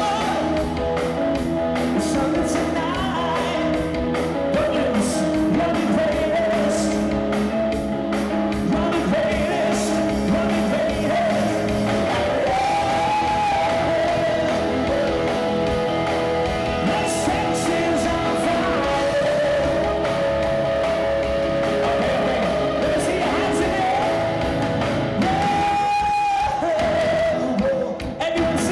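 Live pop-rock performance: a male singer sings into a microphone over electric guitar and band accompaniment, with some long held notes. The music drops away briefly near the end.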